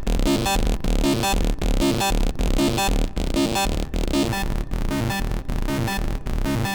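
Hard techno loop playing: a sequenced Serum 2 saw lead over a heavy, distorted low kick, repeating in an even rhythmic pattern.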